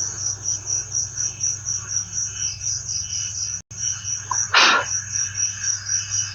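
Night insects, likely crickets, chirping in a steady high pulsing trill at about four pulses a second. About four and a half seconds in there is one short, louder sound, and just before it the sound cuts out for a moment.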